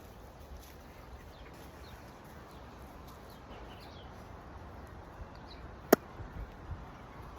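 Quiet background with a few faint, short bird chirps, then a single sharp click about six seconds in, followed by a few soft low thumps.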